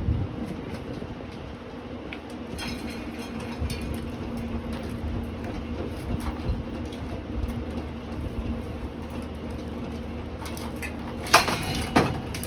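Litex Schuster ceiling fan running with a steady motor hum and light ticking from its damaged blades, then two loud knocks about half a second apart near the end.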